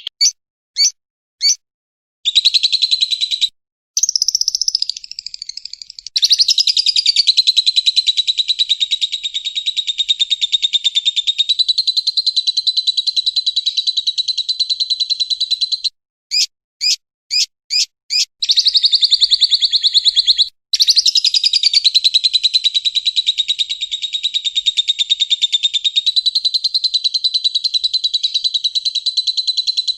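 Lovebird's long 'ngekek' song: a few short separate chirps, then a very rapid unbroken trilling chatter lasting over ten seconds, a second run of separate chirps a little past halfway, and another long rapid trill.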